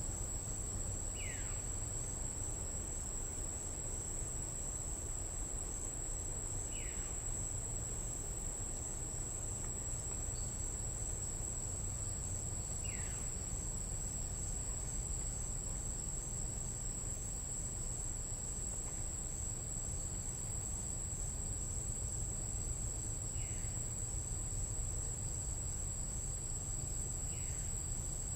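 Tropical night insects in the Panamanian jungle keep up a steady, high-pitched drone. A short falling whistle-like call from an unseen animal sounds five times, a few seconds apart.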